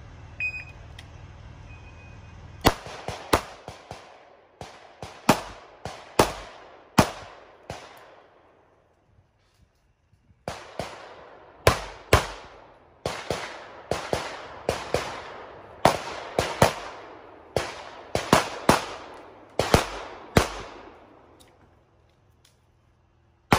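A shot timer's short start beep, then rapid strings of pistol shots, many in quick pairs, each trailing off in an echo. About two seconds without shots near the middle, then more strings, with a last shot at the end.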